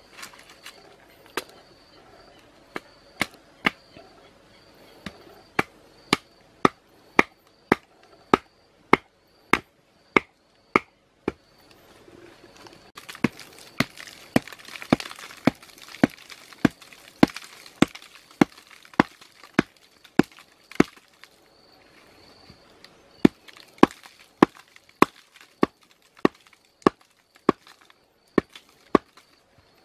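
Sharp wooden knocks, a thick stick pounding an upright bamboo stake, about two blows a second with two short pauses. Partway through, a spell of hiss lies under the blows.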